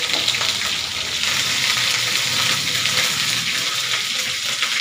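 Green chillies and curry leaves sizzling steadily in hot sesame oil in an aluminium kadai while being stirred with a wooden spatula: the tempering is frying.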